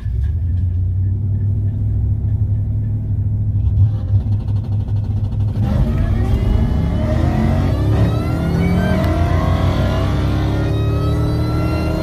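Supercharged V8 of a Ford SVT Lightning pickup heard from inside its cab: a steady low rumble as it waits at the line, then from about halfway through a hard launch, the engine note climbing steadily in pitch as the truck accelerates.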